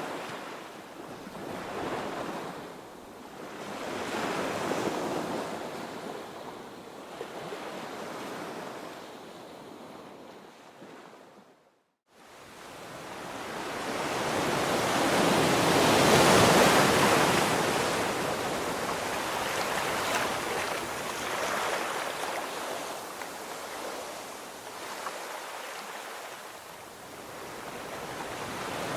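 Ocean surf washing onto a beach, rising and falling in slow swells. It drops out briefly near the middle, then builds to a larger wave that is the loudest part.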